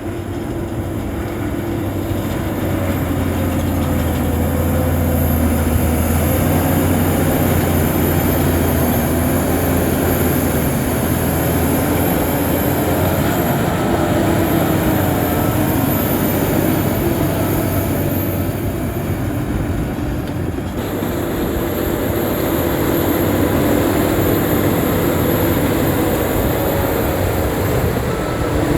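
Shantui crawler bulldozer's diesel engine running steadily under load, its note wavering a little, with a brief dip about two-thirds of the way through.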